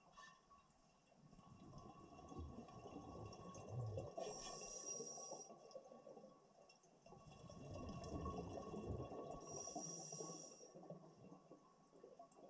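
Scuba diver breathing through a regulator underwater: two breath cycles, each a faint bubbling rumble followed by a short hiss, about five seconds apart.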